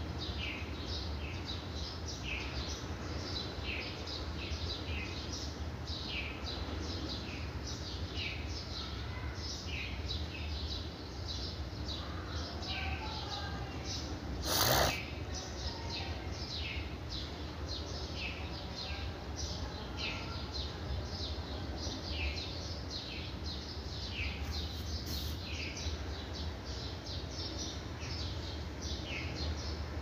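Small birds chirping over and over, short quick notes falling in pitch, two or three a second, over a steady low hum. One brief loud noise about halfway through.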